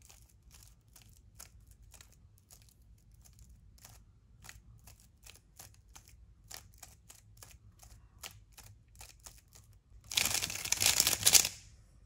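Stickerless 3x3 speed cube turned by hand: a string of separate plastic clicks as the layers are turned one move at a time. Near the end comes a much louder, dense burst of clacking lasting about a second and a half, as many turns follow in quick succession.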